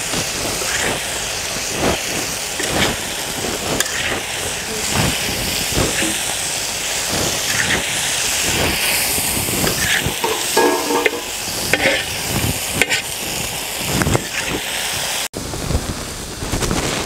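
Chicken pieces with onion and tomato sizzling in hot oil in a wok, while a metal spatula stirs and turns them with irregular scrapes and knocks against the pan. There is a sudden short break near the end.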